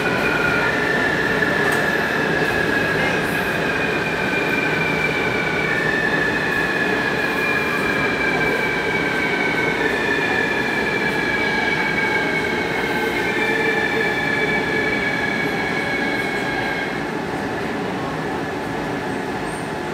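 Taipei Metro Circular Line train heard from inside the car as it runs into the station: running rumble under a whine from the traction electrics that moves in stepped tones. The whine stops a few seconds before the end and the rumble eases as the train comes to a stop.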